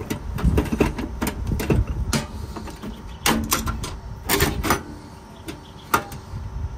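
Irregular clicks and knocks of tools and metal fittings as a gas pipe connection is worked loose from a pool heater's gas valve in a cramped compartment.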